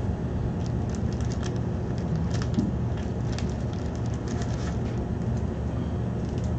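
Trading cards being handled, with a scatter of light clicks and rustles over a steady low hum.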